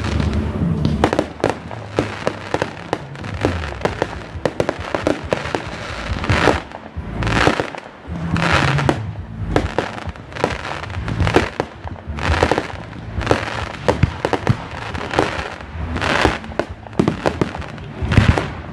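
Fireworks display: aerial shells bursting in quick, overlapping bangs and crackles, with music playing underneath.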